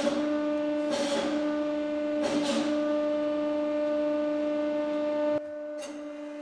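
Hydraulic press pump running with a loud steady hum while the spike is forced into a rubber hockey puck, with a few sharp cracks in the first couple of seconds. About five seconds in the sound drops abruptly to a quieter hum.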